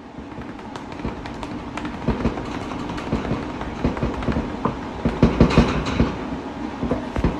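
A hand patting and scratching a cat's lower back at the base of its tail: a fast, irregular run of soft thumps that grows louder, busiest about five to six seconds in.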